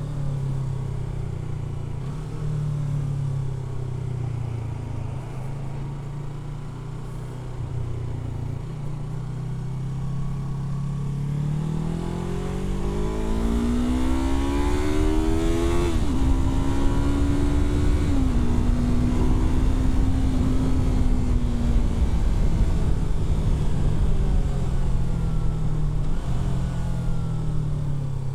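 Yamaha R3's parallel-twin engine heard from the rider's seat: it runs at low revs, then pulls up through the revs from about ten seconds in, with two quick upshifts close together. It then eases off and settles back to low revs near the end, with wind noise growing while it is at speed.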